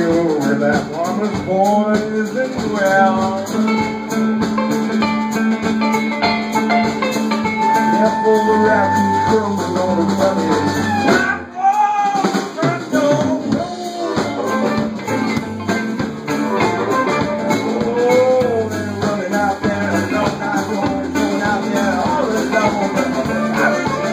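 Live blues band playing: banjo, electric guitar and drum kit with harmonica and a singing voice. The band drops out for a moment about halfway through, then comes back in.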